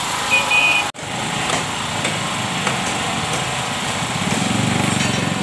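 Street traffic with small engines running close by. There is a short high tone near the start, and an engine grows louder toward the end.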